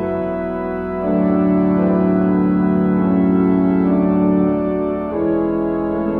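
Three-manual virtual pipe organ playing sustained full chords in a hymn improvisation, the harmony moving to a new chord about a second in and again near the end.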